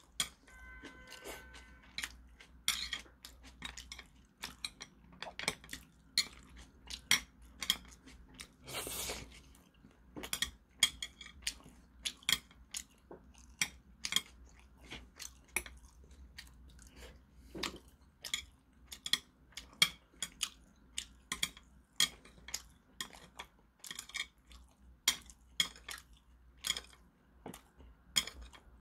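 Metal chopsticks clicking and scraping against a plate in irregular sharp taps, about one or two a second, as grilled hairtail is picked off its bones, with chewing in between.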